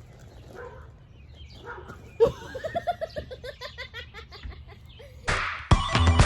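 A person laughing in a quick run of high-pitched giggles, starting about two seconds in. Near the end, louder music begins.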